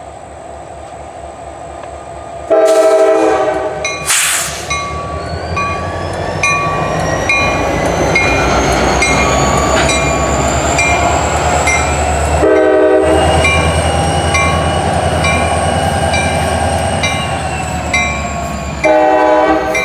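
Northbound CSX freight train approaching and passing, led by a diesel locomotive sounding its air horn: a long blast, a short one, then another near the end. Between the blasts the locomotive engine rumbles steadily, with regular wheel clicks and a high whine that rises and fades.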